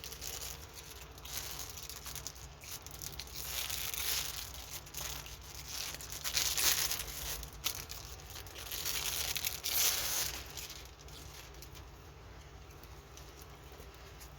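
Packaging of a diamond painting kit rustling and crinkling in irregular bursts as it is handled and opened, quieter for the last few seconds.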